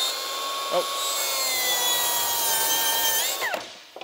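Milwaukee M18 Fuel cordless track saw ripping 3/4-inch BCX plywood along its track: a steady high motor whine with cutting noise, dipping slightly under load. It is the saw's first pass on a new track, which also trims the track's splinter strip to the blade. Near the end the trigger is released and the whine falls as the blade spins down.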